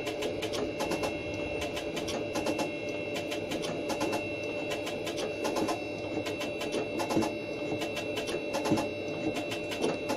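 Machine tool running with a steady whine while a slotting cutter strokes back and forth, knocking several times a second as it cuts a spline into a bushing.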